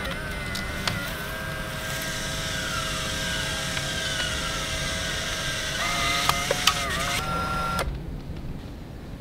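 Instax Mini Link printer whirring steadily as its motor feeds an instax mini print out of the top slot. The whir shifts pitch with a few clicks, then stops abruptly near the end as the print finishes ejecting.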